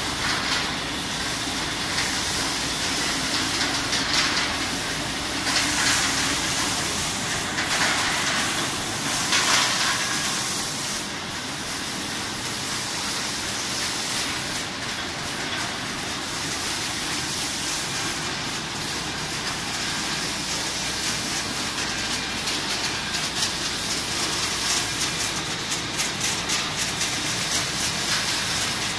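Sidel SBO 10 stretch blow-moulding machine and its preform feed running: a steady mechanical clatter with several short, loud bursts of air hissing in the first ten seconds and a fine rapid rattle later.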